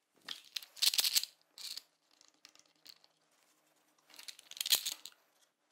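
Clattering and rattling of small hard workshop parts being handled, in two main bursts with a short one between them.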